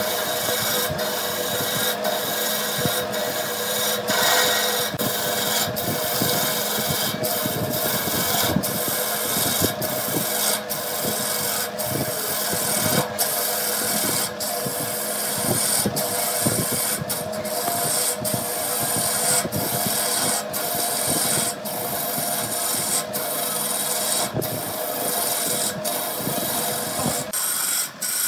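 Wood being scraped continuously by a tool, over the steady hum of a running woodworking machine, with many brief breaks.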